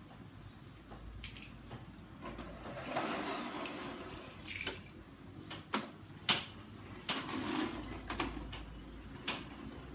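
Plastic toy garbage truck pushed across a tile floor, its wheels rolling with a low rattle, with several sharp plastic clacks and knocks, the loudest a little past the middle.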